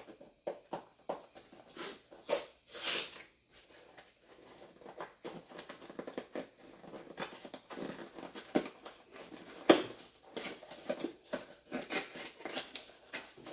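A parcel of trading cards being opened by hand: irregular rustling, crinkling and clicks of packaging, with a longer rustle about two and a half seconds in and one sharp click near ten seconds.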